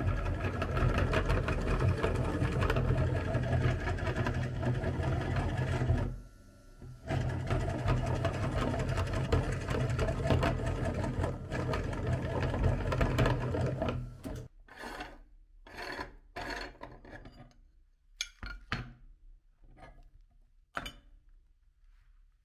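Belt-driven meat grinder running steadily with a low hum as it grinds bars of soap into crumbs, with a brief break about six seconds in. After about fourteen seconds the grinder stops, and hands rustle and crunch through the ground soap crumbs in short bursts.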